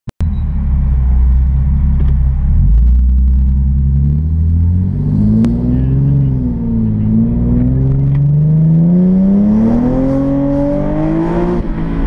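Nissan 370Z's 3.7-litre V6 breathing through a Fast Intentions catback exhaust and catless test pipes, heard from inside the cabin. It drones low and steady at first, then about halfway in the pitch climbs as the car accelerates, rising steadily until it falls away sharply near the end.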